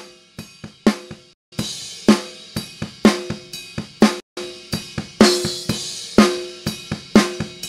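Soloed snare-top microphone track from a recorded drum kit playing back a beat: a strong snare hit about once a second with lighter hits and hi-hat and kick bleed between. Its gain is being pushed up toward 0 dB VU, enough to distort with digital clipping.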